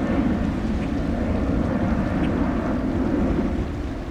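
Steady low rumble of jet aircraft engines, with wind noise on the microphone; it eases slightly near the end.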